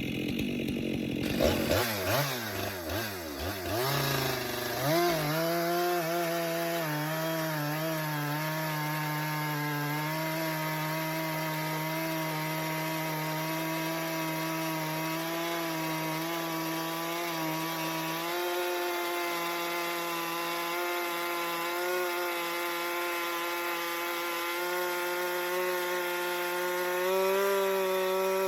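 Stihl MS 462 two-stroke chainsaw with a 25-inch bar cutting through a big log. It is revved up and down for the first few seconds, then held at full throttle in one long cut, its note steady and a little low under the load. The pitch climbs near the end.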